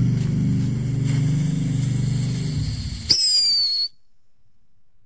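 Small novelty firework burning in a metal bucket: a steady hiss with a low buzzing tone as it sprays sparks, then about three seconds in a sharp pop and a short high whistle falling slightly in pitch that cuts off suddenly.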